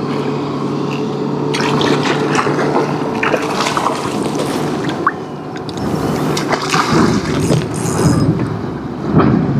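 Water splashing and sloshing at the surface as a hooked salmon thrashes on the line beside the kayak. A motor hum stops about a second and a half in, and a low rumble joins in the second half.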